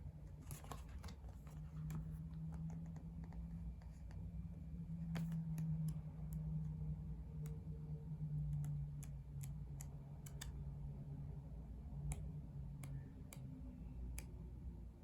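Pages of an album's photo book being flipped by hand: scattered light clicks and paper rustles, over a low steady hum.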